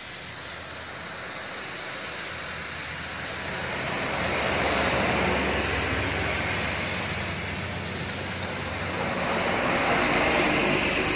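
Tyres hissing on a rain-soaked road as a bus and a car pass close by, with a low engine hum beneath. The hiss swells about halfway through and is loudest near the end as the bus goes past.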